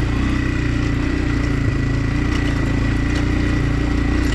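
Motocross bike's engine running steadily at low revs, with no revving up or down.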